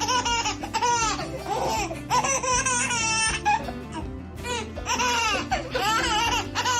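A baby laughing in repeated high-pitched bursts over steady background music.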